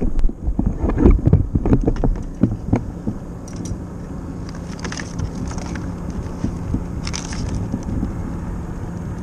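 Knocks and rattles of a wire crab trap being handled, a quick run of them in the first three seconds, then scattered light clicks and rattles, over low wind noise.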